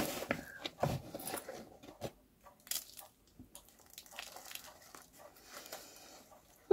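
Potting soil being scooped by hand and dropped into a plant pot: scattered crunches, rustles and light taps, loudest in the first second or so and fainter after.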